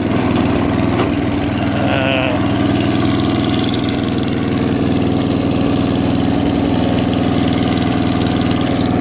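Atco Balmoral 14S petrol cylinder lawnmower engine running steadily at idle.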